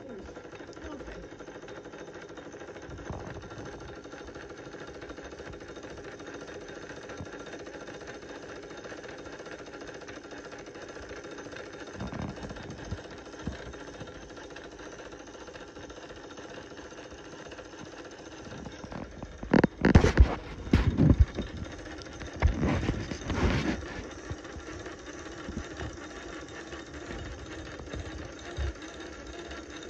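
Antique Grover & Baker No. 9 sewing machine turned by hand at its handwheel, with the clutch loosened to wind the bobbin: a steady mechanical whir. There are two louder spells of knocking about two-thirds of the way through.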